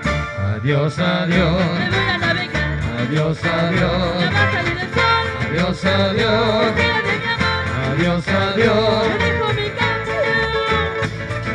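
A parranda string band playing a lively tune on guitars and other plucked string instruments, over a low bass line.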